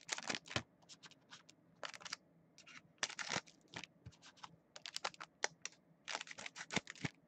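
Scissors snipping the ends off foil trading-card packs: groups of quick sharp clicks with some crinkling of the wrapper.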